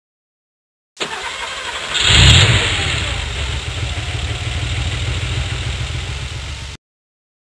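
A car engine starts up and catches with a brief loud rev about two seconds in, then settles into a steady, low idle. The sound cuts off suddenly near the end.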